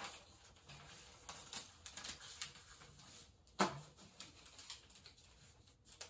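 Sheets of paper rustling and crinkling faintly as they are handled and leafed through, with a sharper rustle about three and a half seconds in.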